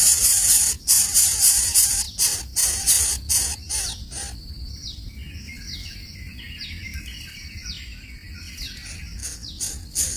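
Birds: a loud, harsh high-pitched noise broken by regular short gaps for about the first four seconds, then a bird repeating short falling chirps, one or two a second.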